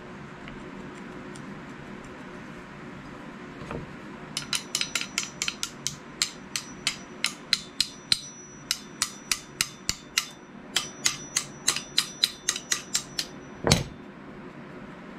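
Rapid light metal-on-metal taps of a small tack hammer, about four a second with a short bright ring on each, starting about four seconds in and keeping on for some nine seconds, working a rusted handle part along a knife's steel tang. One heavier knock follows near the end.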